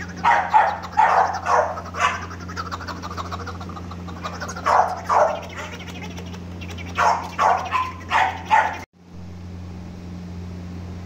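Small puppies yapping in three quick flurries of short, high yaps over a steady low hum. The sound cuts off abruptly near the end.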